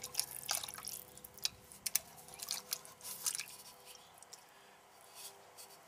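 Chicken noodle soup pouring and sliding out of a tin can into a small metal pot: a run of short wet splats and squelches over the first three seconds or so, then fading as the last noodles are shaken out.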